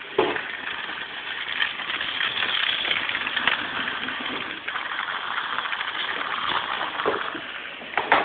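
Battery-powered toy train running along a plastic track: a steady motor whir with fine rapid ticking, and a few sharp knocks near the end.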